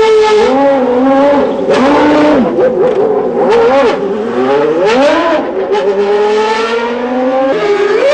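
Williams FW19's 3.0-litre Renault V10 Formula 1 engine at high revs, the high-pitched note climbing and falling repeatedly through throttle lifts and gear changes. Near the end the pitch drops sharply once, then climbs again.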